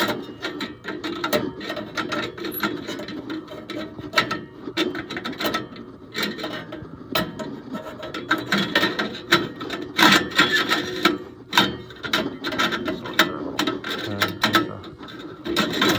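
Metal burners of a Trane SV92 furnace being fitted back into the burner assembly after cleaning, giving irregular metallic clicks and rattles.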